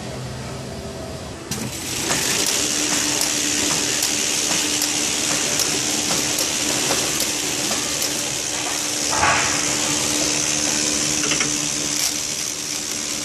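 Delta Systems flow wrapping machine running, with film feeding off its roll: a steady hiss over a low hum, with light regular clicks. It comes up about two seconds in, and there is a brief louder swish about nine seconds in.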